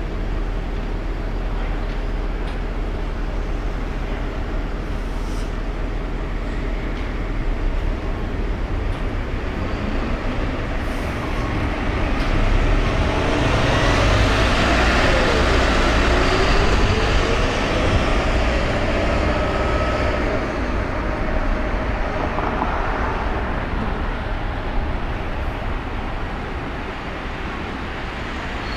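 City street traffic: a steady rumble of cars and other road vehicles, growing louder in the middle as a vehicle passes close, its tones bending in pitch as it goes by.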